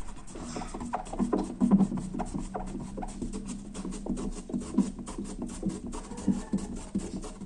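Rapid, irregular scratchy rubbing strokes on window glass, several a second, as tape-adhesive residue is scrubbed with dimexide. A steady low hum runs underneath.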